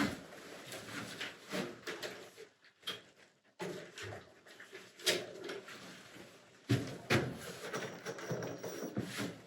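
Irregular knocks, clicks and rustling from hand work on a window frame and tools, with sharper knocks about five and seven seconds in.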